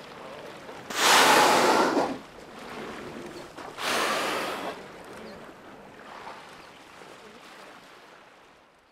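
Humpback whales blowing at the surface: two loud, breathy exhalations, the first about a second in and the second about three seconds later, each lasting about a second, over faint lapping water.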